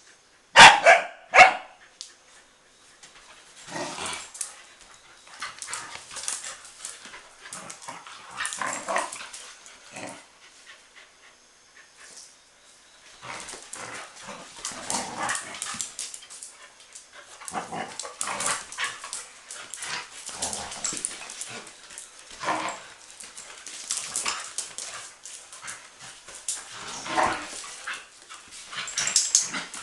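A group of dogs barking and scuffling at play: two loud sharp barks about a second in, then a long run of irregular, quieter barks and noises, with a short lull around the middle.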